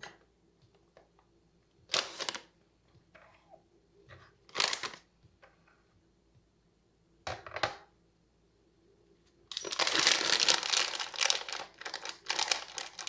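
A few short knocks and clicks as a glass bowl is set on a digital kitchen scale. From about two-thirds of the way in comes continuous crinkling of a plastic bag of peanuts being handled.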